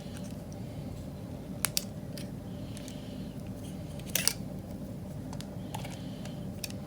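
Small plastic clicks as a GoPro camera is handled and an SD card is pushed into its slot: one click, then a quick pair, then one more near the end, over a steady low hum.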